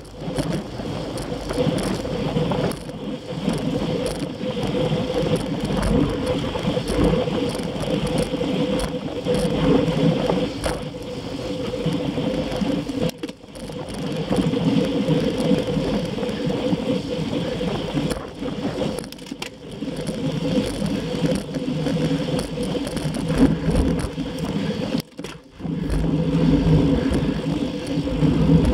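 Steady rolling noise of wheels on rough, cracked asphalt, with rattling from the low-mounted rig, dipping briefly twice.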